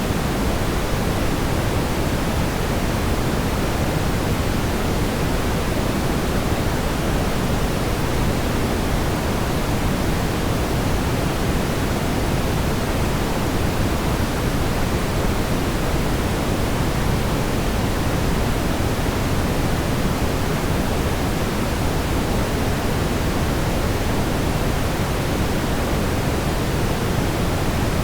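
Steady, smoothed brown noise: an even, unchanging hiss weighted heavily toward the low end, with no tones or events in it.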